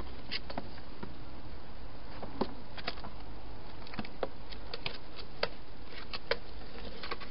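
Irregular small clicks and crunches from a wild hedgehog feeding and moving about inside a plastic feeding box, over a steady hiss.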